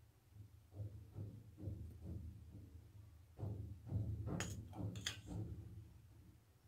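Soft low thumps, two or three a second, with two sharp clicks near the middle: a metal spoon being tapped to shake ground cinnamon out over a platter of seffa.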